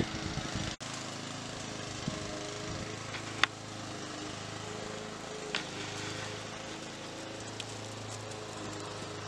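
Lawn mower engine running steadily, with a sharp click about three and a half seconds in.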